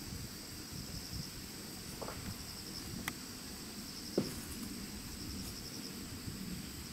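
Insects chirping in short, repeating pulsed trills over a steady high hiss, while a goat crops and chews grass; a few sharp snaps of grass being torn stand out, the loudest about four seconds in.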